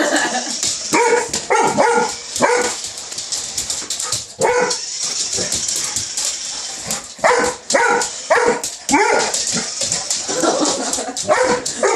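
Dog barking in short, high barks that come in clusters of two to four, about a dozen in all, at a remote-control toy car it is confronting.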